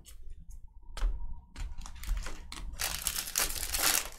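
Baseball cards being flipped and handled, with scattered sharp light clicks. In the last second or so this gives way to a dense crinkling, like a pack wrapper being handled.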